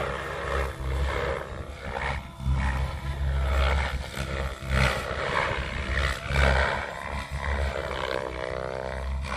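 Electric 3D RC helicopter with an Egodrift motor flying aerobatics: the rotor blades whoosh and the motor whines, swelling and fading in loudness and pitch as it flips through manoeuvres.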